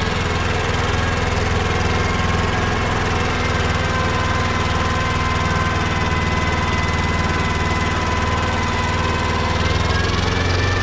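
Small 12-hp Kubota compact tractor's engine running steadily under load while pulling a three-furrow plough and packer through the soil, a low drone with a faint high whine on top.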